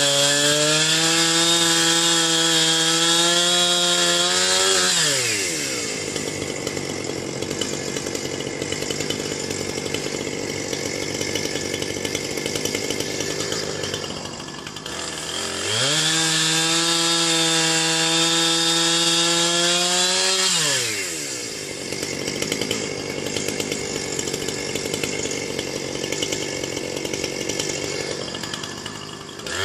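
Chainsaw cutting into a chokecherry trunk. It starts at full throttle, then drops in pitch as the chain bites into the wood and runs under load with a rough cutting noise. It revs back up free partway through, then bogs down into a second cut, and revs up again near the end.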